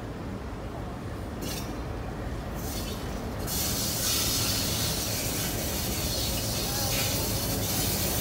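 Diesel locomotive's engine running with a low, steady hum as it rolls slowly in, with two short hisses of air and then a loud, continuous hiss from about three and a half seconds in.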